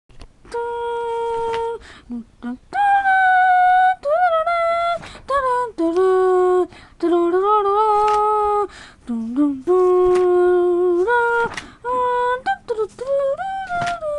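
A high voice singing or humming a wordless tune in long held notes that step and slide between pitches, with short breaks between phrases.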